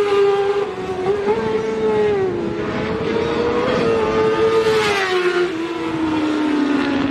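Racing sport motorcycles at high revs, a loud high-pitched engine note that wavers up and down in pitch. It swells louder about five seconds in and falls steadily in pitch near the end as a bike draws away.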